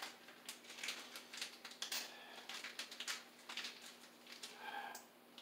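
Faint, irregular clicks and rattles of hand tools and metal parts being handled while a boiler circulating pump is fitted and wired.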